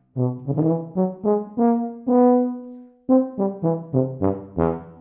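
Wessex Vienna F tuba played solo: a phrase of short separate notes, one long held note about two seconds in, then a quicker run of short notes.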